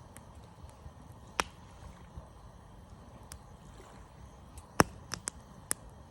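Campfire wood crackling: scattered sharp pops, the loudest a little before five seconds in, followed by a quick run of three more, over a low steady rumble.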